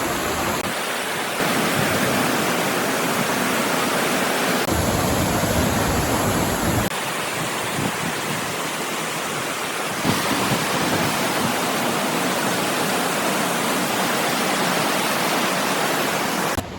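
Waterfall rushing: a loud, steady wash of falling water, shifting abruptly in tone a few times.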